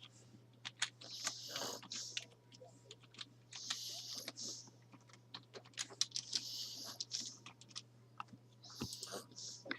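An elderly woman snoring and breathing heavily in her sleep: hissing breaths come about every two and a half seconds, with scattered sharp clicks between them. A steady low hum from the webcam microphone runs underneath.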